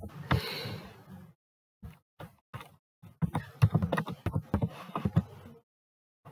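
Typing on a computer keyboard: a sharp click at the start, then a quick run of key clicks as a word is typed, densest a little past the middle.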